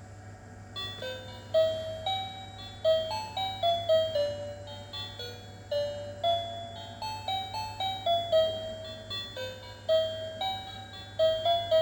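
Toy steering wheel playing an electronic tune: a simple melody of single chiming notes, a few per second, starting about a second in.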